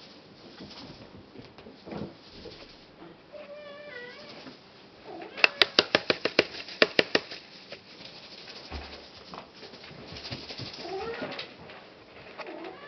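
Siamese and oriental kittens meowing: a short call about three and a half seconds in, and another fainter one near the end. Midway comes a quick run of about a dozen sharp clicks or taps in under two seconds, the loudest sound.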